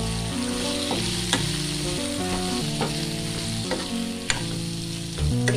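Oil sizzling in a kadai as pieces of drumstick (moringa pods) are stirred and fried, the steel ladle clicking against the pan several times. Background music plays underneath.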